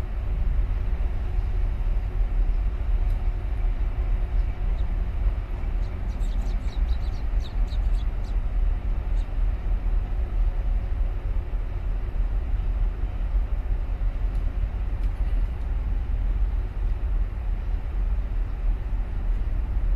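Steady deep rumble with a faint hum from the huge container ship passing close by under way. A brief run of high chirps comes about six seconds in.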